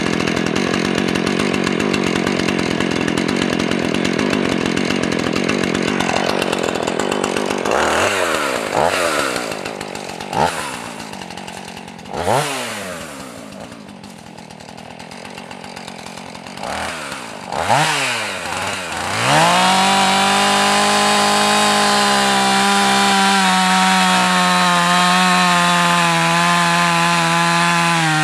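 Husqvarna 450 chainsaw's 50 cc X-Torq two-stroke engine running: steady at first, then revved up and let back down several times, settling into a high, steady full-throttle whine for the last third.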